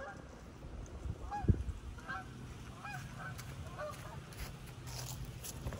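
Geese honking in a series of short calls, about two a second at times. A single thump about a second and a half in.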